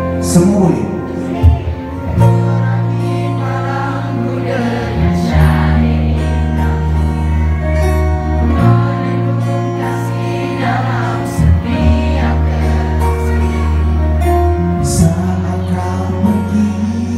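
A male singer sings live through a PA microphone over strummed acoustic guitars and sustained chords, as a pop ballad played by a small acoustic band.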